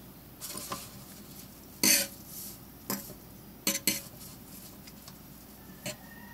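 Metal fork clinking against a stainless steel sink, about half a dozen sharp clinks spread over several seconds, the loudest about two seconds in.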